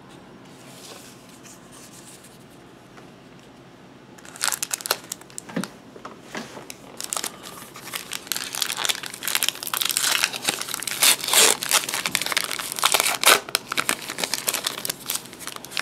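A 2014 Gypsy Queen baseball card pack's wrapper crinkling as it is torn open. The crackling starts about four seconds in and gets denser and louder toward the end.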